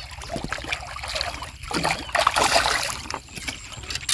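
A hooked carp thrashing and splashing at the water's surface as it is pulled in to the bank, loudest about two seconds in.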